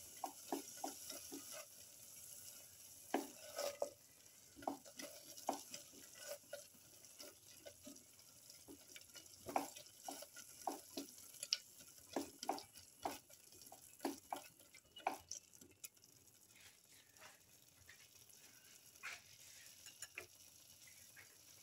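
Spatula stirring and scraping green herb paste around a metal pan in many short, irregular strokes, over a faint sizzle of the paste frying, the sizzle stronger in the first few seconds.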